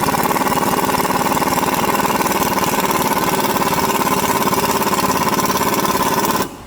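Pneumatic impact wrench hammering steadily as it runs a 15 mm nut down on a front stabilizer link, then cutting off suddenly near the end.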